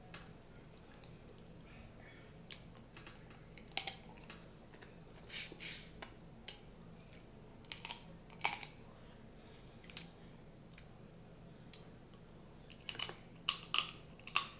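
Boiled snow crab leg shells being snapped apart by hand and cracked with the teeth: scattered sharp cracks and crunches, with a quick run of them near the end.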